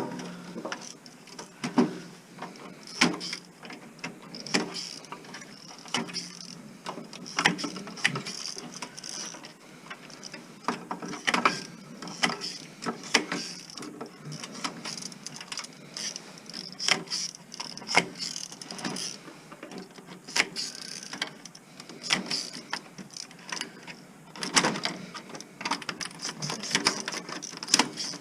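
Irregular metallic clicks and knocks of hand tools and metal parts being handled while a stereo amplifier is taken apart for scrap, with a denser run of knocks near the end.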